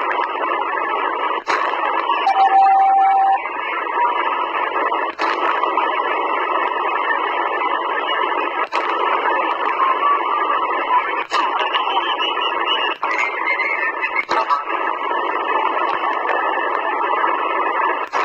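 Sihuadon D-808 shortwave receiver in upper-sideband mode on the 15-metre amateur band, giving a steady hiss through its speaker, with a few sharp clicks while it is slowly tuned. A steady whistle from a carrier sounds for about a second, a little over two seconds in.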